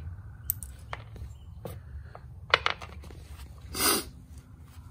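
Small steel bolts, washers and nuts clicking one by one as they are set down on a plywood floor, with a short scraping rush a little before the end.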